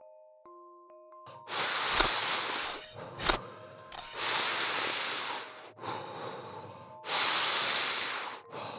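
Three long hissing rushes of smoke through a full-face mask hooked to a smoking machine, each lasting about one and a half seconds, with two short knocks between the first two. The hissing is preceded by a few faint held electronic tones.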